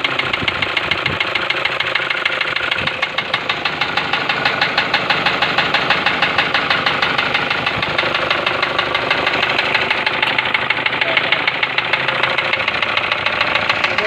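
Toyota Hilux turbo-diesel engine running steadily with a fast, even diesel knock from its injectors. A diagnostic computer's injector feedback reading has flagged a faulty injector, due for replacement and overhaul.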